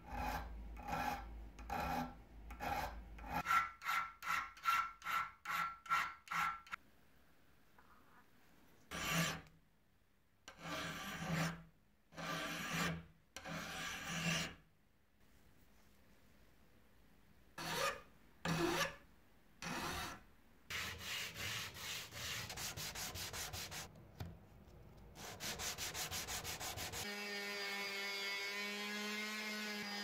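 Hand file scraping back and forth on the metal crank handle of an antique coffee grinder: runs of strokes, about three a second at their quickest, broken by pauses, then a fast run of short rubbing strokes. Near the end an electric detail sander starts and runs steadily on a small piece of wood.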